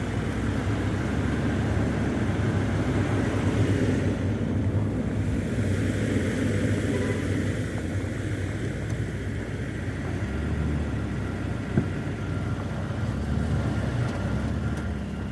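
Steady car engine and road rumble heard from inside the cabin as the car moves slowly forward, with a small click about twelve seconds in.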